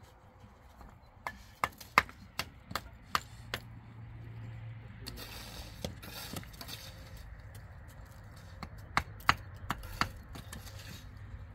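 Two runs of sharp blows on wood, two to three a second: about seven early on, then four or five more near the end. A low steady hum sets in about a third of the way through.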